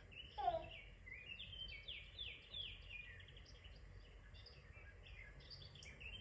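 Recorded birdsong played through a television speaker: a faint run of short, quick, falling chirps.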